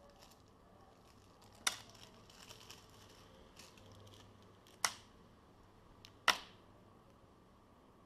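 Hands handling a small plastic bag of screws and plastic parts: faint crinkling and three sharp clicks spaced over several seconds.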